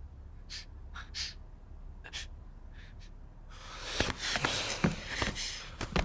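A man gasping sharply in short bursts while being tickled. From about three and a half seconds in, it turns into a louder scuffle of rustling and thuds mixed with breaths.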